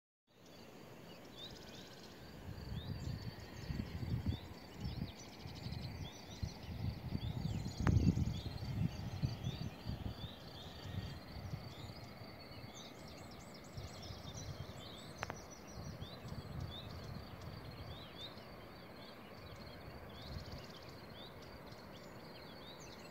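Small birds chirping over and over in short, quick notes, over irregular low rumbling of wind on the microphone that is loudest about eight seconds in. Two faint clicks.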